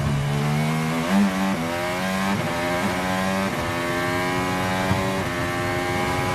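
2016 Red Bull RB12 Formula One car's turbocharged V6 hybrid engine accelerating hard. Its pitch climbs and drops back several times as it shifts up through the gears.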